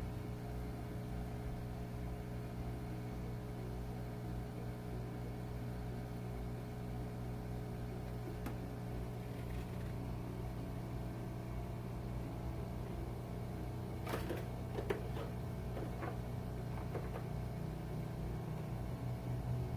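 Steady low machine hum, as from a fan or blower running, with a few light clicks and taps about two-thirds of the way through.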